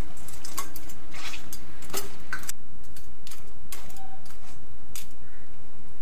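Metal spatula scraping and knocking against a metal kadai as masala-coated crab pieces are stirred and fried, with irregular clicks and scrapes that thin out after about four seconds, over a steady low hum.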